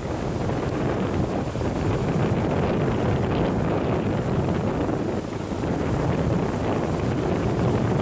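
Wind buffeting the microphone in a steady low rumble, over the engines and propellers of a Dash 8 turboprop airliner on its landing approach and flare.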